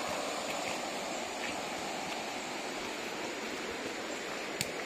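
River water rushing steadily over rocks, with a single sharp click near the end.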